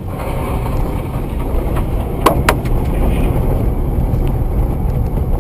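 A car on the move, recorded by a dash camera: steady low road and engine rumble. Two short sharp clicks come a little over two seconds in.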